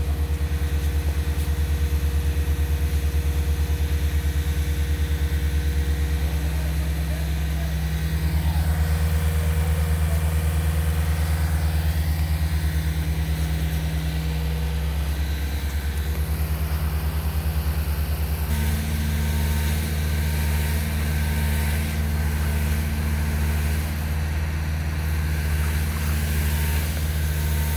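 Heavy diesel engine of the concrete pumping and delivery trucks running steadily, a low drone with a fast even pulse. Its note steps up about two-thirds of the way through.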